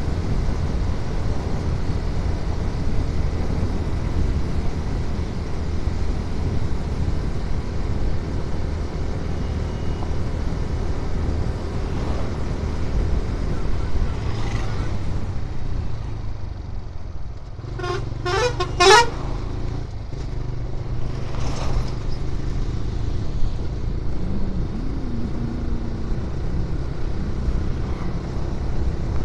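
Steady wind and road rush from a moving motorcycle. A little past halfway, a vehicle horn gives four quick toots, the last the loudest.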